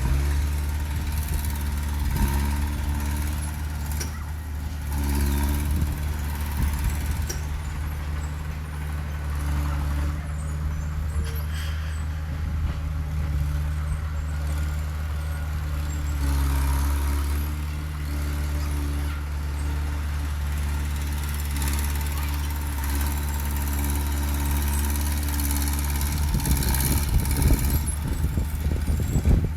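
Heavy diesel engine of earthmoving machinery running steadily, its pitch stepping up and down several times as it works under load. A rough, irregular clattering joins it near the end.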